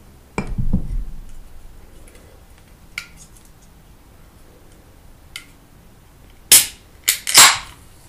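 Close-miked eating sounds of crispy fried food: a dull low thud about half a second in, a couple of faint clicks, then three sharp crunches of bites near the end, the loudest sounds here.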